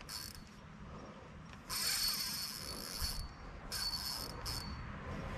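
Spinning reel's drag buzzing in short runs as a big snook pulls line off against it. There are four runs; the longest and loudest lasts about a second and a half, a couple of seconds in, and two quick ones follow.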